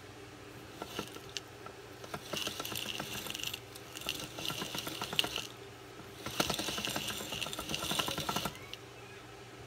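Metal dough-roller machine's gear train and drum mechanism clattering and clicking in two spells of about three to four seconds each, over a steady low hum.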